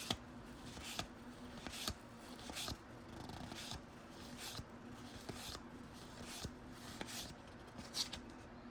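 Basketball trading cards being flipped one at a time off a stack: a soft slide and tap about once a second, with a faint steady hum underneath.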